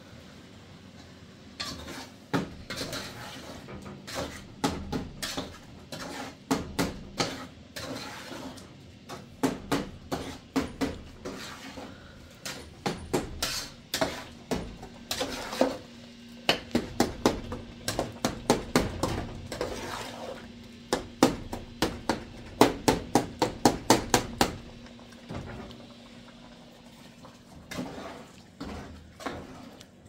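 Metal spoon stirring and knocking against a metal cooking pot on a gas stove: a long run of quick, irregular clinks and scrapes that stops a few seconds before the end, followed by a few softer knocks.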